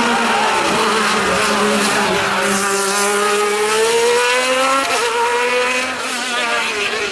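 Alfa Romeo 155 ITC/DTM race car engine accelerating, its note rising steadily. It shifts up about five seconds in, with a sudden drop in pitch, then climbs again.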